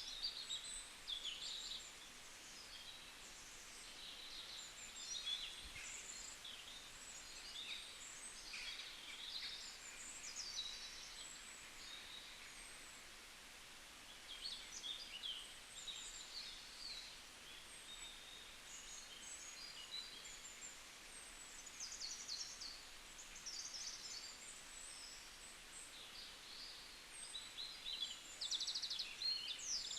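Birds chirping and calling outdoors: many short, quick chirps and trills, coming and going throughout, over a faint steady hiss.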